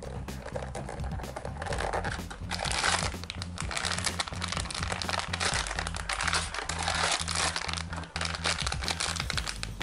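Clear plastic bags of model-kit parts crinkling and a small cardboard box rustling as it is opened and emptied, over background music.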